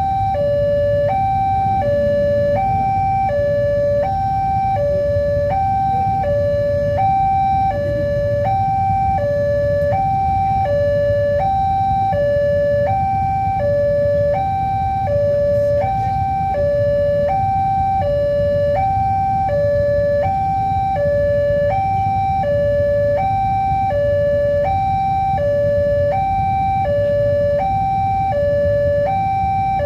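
Railway level-crossing warning alarm sounding: an electronic two-tone signal alternating steadily between a higher and a lower note, about one full high-low cycle every second and a quarter, warning that a train is approaching. A steady low rumble runs underneath.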